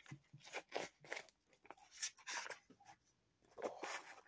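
Crinkling and rustling of a British Army ration retort pouch handled and worked open by hand, in short irregular bursts.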